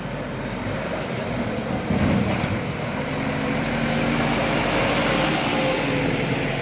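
Mitsubishi Fuso Colt Diesel dump truck's diesel engine running under load as the truck drives up and passes close by, growing louder as it nears. There is a short loud thump about two seconds in.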